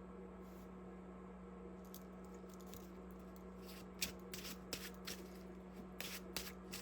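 Tarot cards being shuffled by hand: a quick run of soft flicks and slaps of cards from about four seconds in, over a faint steady hum.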